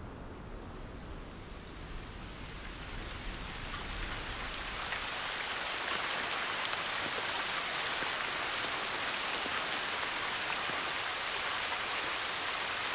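Steady rain falling, with scattered sharp drop taps. It swells in over the first few seconds as a low rumble fades away.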